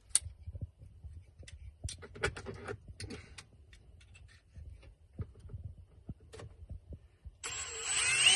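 Scattered light clicks and knocks of a hammer drill being handled, then near the end the drill starts running, set to plain drill mode to pre-drill a pilot hole.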